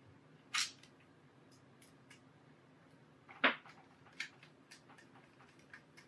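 A few sharp clicks and taps of a small screwdriver, screws and a metal hard-drive bracket being handled against a laptop's plastic chassis, the loudest about three and a half seconds in, with fainter ticks after it.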